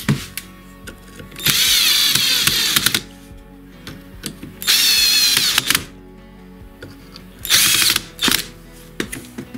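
Cordless drill/driver driving screws through a steel plate into a wooden disc, its motor whining in three runs: two of about a second and a half each and a shorter one near the end.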